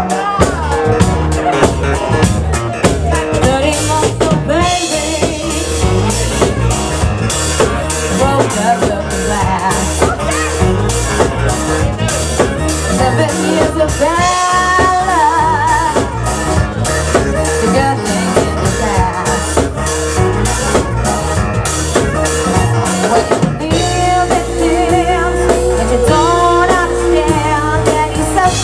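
Live band playing a song loudly: a woman singing into a microphone over a drum kit keeping a steady beat, with other band instruments.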